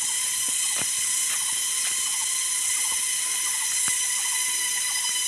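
Steady high-pitched buzzing of a chorus of insects, with a few faint ticks.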